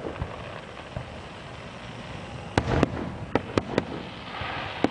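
Fireworks going off: a bang at the start, then a quick run of five sharp bangs about two and a half seconds in, followed by a rising crackle near the end.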